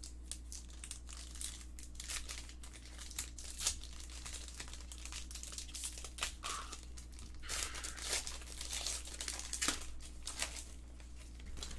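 Foil wrapper of a Donruss Optic trading-card pack being torn open and crinkled in the hands, in irregular crackles that bunch together in the middle and near the end, over a steady low hum.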